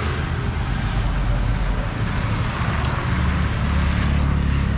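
Road traffic: passing car engines and tyre noise, with a low engine hum growing louder in the second half.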